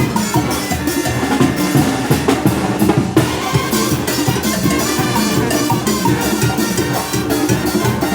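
Mexican banda, a brass band with bass drum and snare, playing a driving muertero/calenda dance rhythm, the drums beating steadily.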